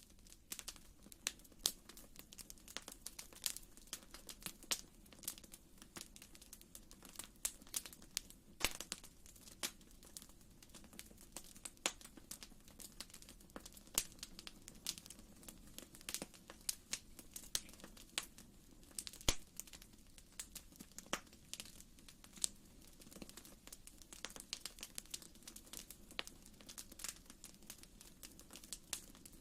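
Fire in a fireplace crackling, with frequent irregular sharp pops over a soft steady background.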